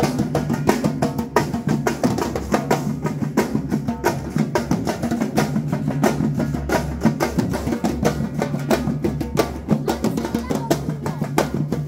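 Batucada percussion group playing a samba rhythm on drums. Fast, dense drum strokes run over a steady low bass-drum pulse.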